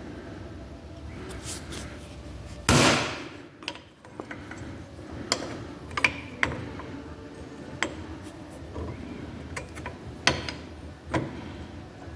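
Hammer blows on steel driving a pressed-in pin out of a Jeep Liberty door hinge. One loud ringing strike comes about three seconds in, then about six lighter strikes at uneven intervals.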